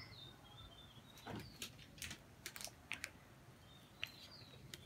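Faint, scattered light clicks and taps, about half a dozen in the middle of the stretch, with a few faint bird chirps near the start and near the end.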